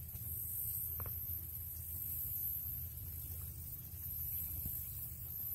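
Steady outdoor ambience by a lake: a low rumble of wind on the microphone under a constant faint high hiss, with one soft click about a second in.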